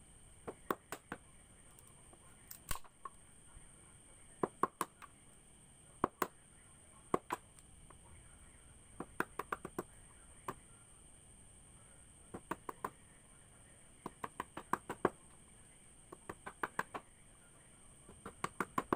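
Irregular clusters of sharp clicks and ticks, mostly three to six in quick succession, coming every second or two over a faint steady high-pitched whine.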